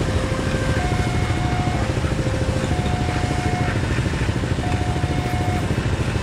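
Diesel locomotive engine running with a steady low rumble as it hauls a train of old freight wagons at about 10 km/h. Over it, a two-tone warning alarm alternates high and low, each tone held about a second.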